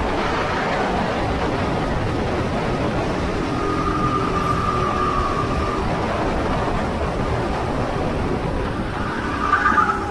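Go-kart engine running at racing speed, a steady loud drone mixed with rushing noise, with a higher note sounding for a couple of seconds about four seconds in and a brief louder burst near the end.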